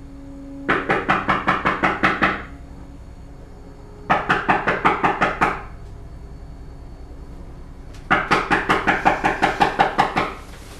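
Rapid, loud knocking on a door: three bouts of about six blows a second, each lasting a second and a half to two seconds, with short pauses between them.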